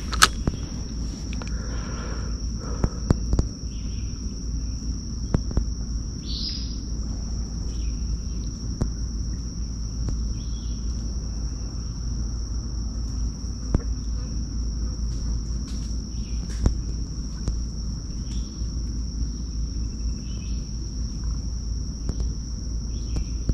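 Insects droning steadily at one high pitch, with a brief drop about six seconds in, over a constant low rumble. A few short clicks and faint bird chirps come through now and then.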